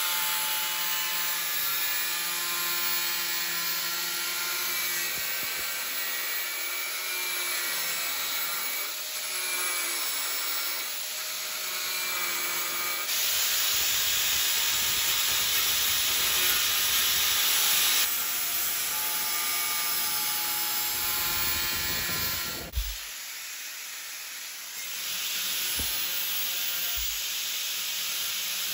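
Angle grinder with an abrasive disc cutting through a steel circular saw blade: a continuous grinding with a whine that shifts in pitch as the disc bites. A sudden knock about three-quarters through, after which the grinding is quieter.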